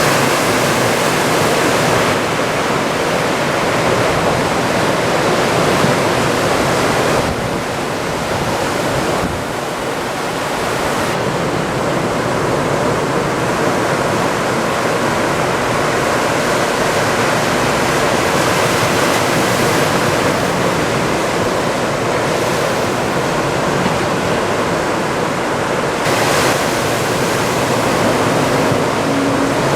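Ocean surf from a typhoon swell breaking and washing in, a loud continuous rush that swells and eases every few seconds.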